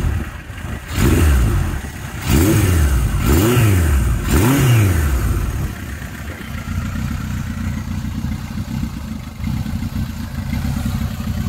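Freshly started 1978 Suzuki GS750 air-cooled inline-four engine, blipped on the throttle about four times in quick succession, each rev rising and falling. About five seconds in it settles to a steady idle, running smoothly on all four cylinders.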